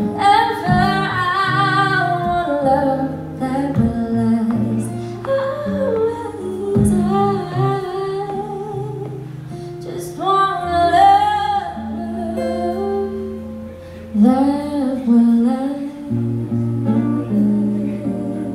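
A woman singing a slow love song live into a microphone, in phrases with long held notes, accompanied by a strummed acoustic guitar.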